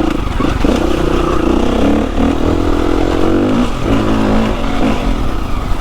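KTM 350 EXC-F single-cylinder four-stroke trail bike engine running at low speed under light throttle, the revs rising and easing a little.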